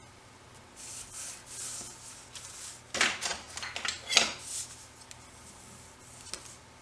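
Cardstock rustling and sliding as a paper flap is worked into place. About three seconds in there is a sharp click, then another about a second later, the loudest sounds here, with a few lighter ticks of handling.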